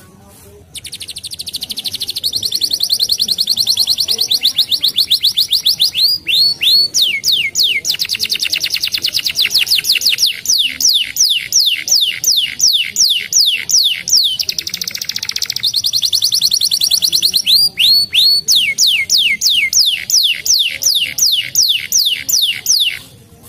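Domestic canary singing one long song. It alternates fast, buzzy trills with runs of quickly repeated falling whistled notes, about three or four a second. The song starts about a second in and stops shortly before the end.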